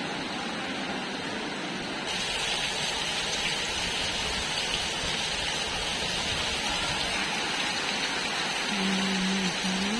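Steady rain falling, an even hiss that gets brighter about two seconds in. A steady low hum starts near the end.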